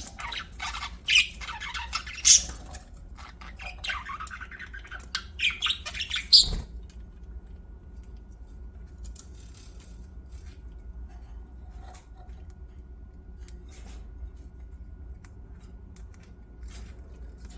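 Budgerigars chirping and squawking in quick, high, sharp calls for the first six seconds or so, then mostly falling quiet, leaving a low steady hum and a few faint chirps.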